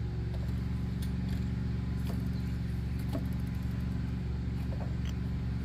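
Steady low mechanical hum with a few faint, scattered ticks.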